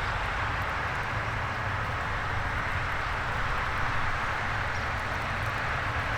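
Heavy harvest machinery running steadily: a constant low engine drone under an even rushing noise.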